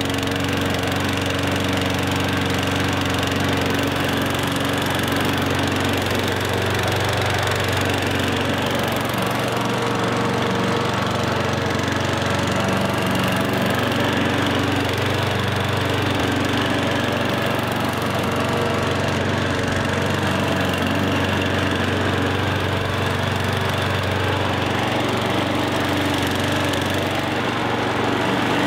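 Small lawn mower engine running steadily at an even speed.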